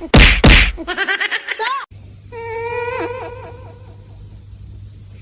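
Two sharp, loud smacks, then a quick run of high-pitched pulsing laughter that cuts off suddenly; after that, a quieter voice laughing in short rapid pulses.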